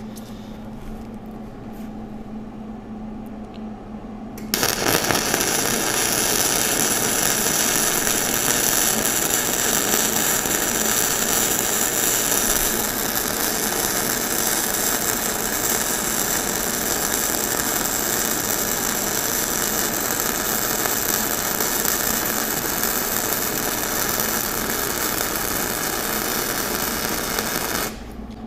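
Flux-core arc welding with a Millermatic 141 wire-feed welder on 3/16-inch steel: the arc strikes about four and a half seconds in, runs steadily and evenly for about 23 seconds, then cuts off near the end. It sounds nice and smooth, the sign of a good bead with voltage and wire speed set right, the wire feeding smoothly and burning into the metal.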